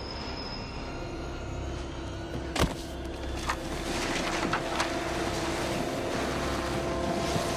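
Film fight sound mix: a steady low rumble of a subway station under one sharp, loud hit about two and a half seconds in. Several lighter hits follow as a held music tone comes in.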